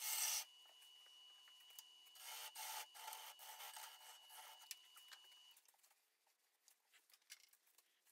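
Bowl gouge cutting the inside of a spinning green, partly punky spalted sugar maple bowl on a wood lathe: a faint rasping scrape in bursts, loudest at the very start. A thin steady whine from the lathe stops about five and a half seconds in, leaving near silence with a few light ticks.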